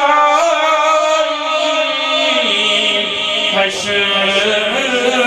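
A man singing a devotional Urdu kalam in long held notes. A deeper sustained vocal layer joins underneath about halfway through.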